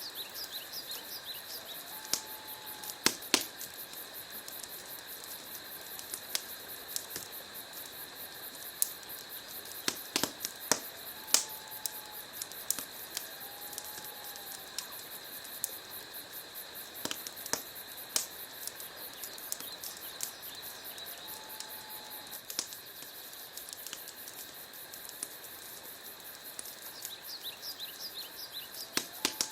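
Wood fire burning in a fireplace: irregular sharp crackles and pops from the logs over a steady hiss, with a few louder snaps now and then.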